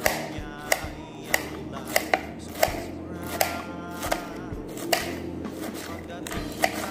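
Kitchen knife chopping lettuce on a ceramic plate: sharp, uneven clicks about one to two a second as the blade strikes the plate through the leaves.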